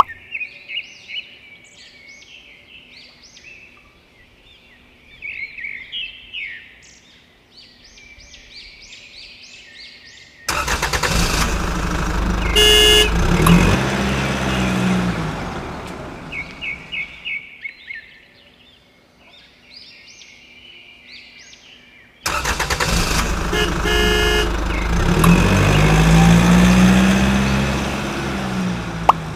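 Birds chirping against a quiet background, cut into twice by a sudden loud roar with a rising and falling engine-like pitch, each lasting about six seconds; a short horn-like tone sounds during the first roar.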